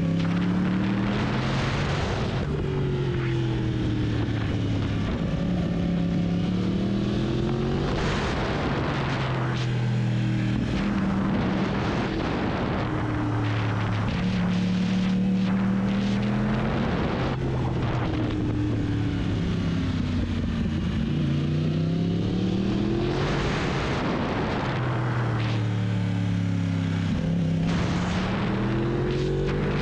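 Yamaha R1 inline-four engine under way, its note rising and falling again and again as the bike accelerates and slows, with rushing wind noise on the microphone that swells every few seconds.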